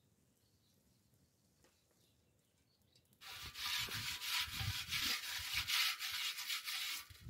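Starting about three seconds in, a hand scrapes and rubs hard over the mud-caked outside of a large metal pot, giving a loud, continuous gritty rasping with irregular dull knocks underneath.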